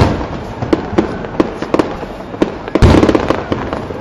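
Fireworks going off: a quick string of sharp bursts and crackle, with heavy booms right at the start and again about three seconds in.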